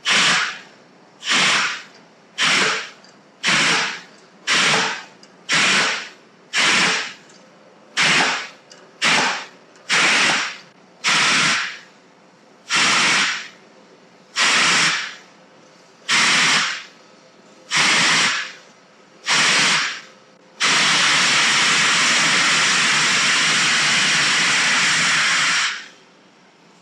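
A series of about sixteen short, sharp hisses, each fading quickly, followed by one long steady hiss of about five seconds, like air or spray being released.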